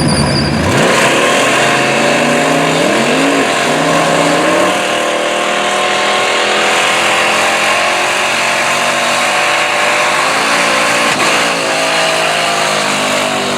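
Drag-racing engines at full throttle, accelerating hard down the strip. The pitch climbs and drops back at gear shifts.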